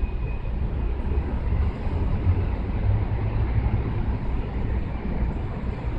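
Steady low rumble of outdoor background noise, with a brief faint high tone near the start.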